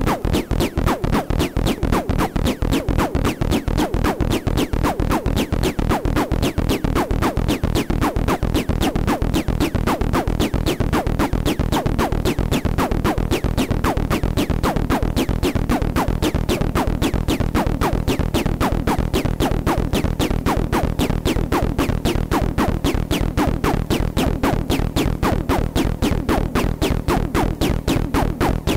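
Electronic music played on an MFOS Noise Toaster analog synthesizer, run through a VB-2 vibrato and a spring reverb: a fast, even pulse over low steady tones.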